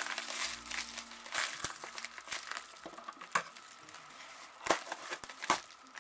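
Wrapping being crinkled and pulled open by hand, an irregular run of crackles with a few sharper snaps in the second half.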